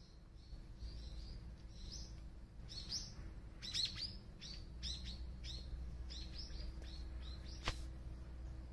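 A small bird chirping: quick runs of short calls that fall in pitch, in several clusters. A single sharp click sounds near the end.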